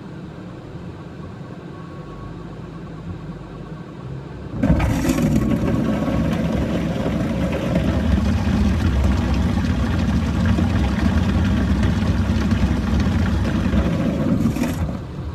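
Heavy water pouring onto a Hyundai Creta's roof, sunroof glass and windows, heard from inside the cabin. Over a quiet engine hum, the dense rush of water starts suddenly about four and a half seconds in, keeps up steadily for about ten seconds, and drops away just before the end.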